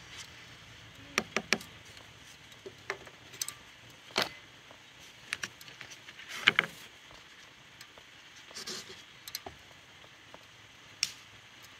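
Kindling snapping and crackling as a small campfire is started: about a dozen sharp snaps at irregular gaps, the loudest and longest about six and a half seconds in.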